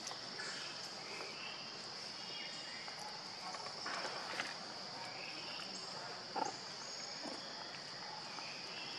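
Steady high-pitched insect chorus, with a few faint rustles and clicks.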